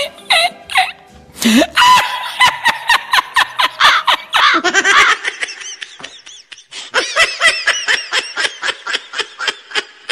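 Comedic laughter sound effect with music: rapid runs of 'ha-ha' laughing pulses, with a lull about five to seven seconds in.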